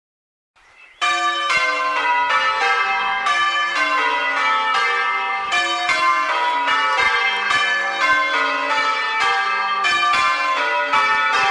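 A clonky, old-fashioned ring of six church bells with an 11 cwt tenor in G, rung full-circle in the English change-ringing style. Ringing starts about a second in, and the bells strike one after another in a steady, continuous stream, each note ringing on under the next.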